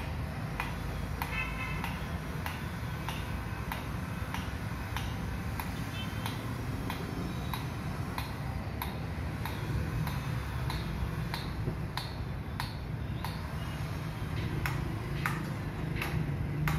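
Distant metal hammering from an automobile workshop: sharp, evenly paced strikes, about one every 0.6 seconds, some with a short metallic ring, over a low steady rumble.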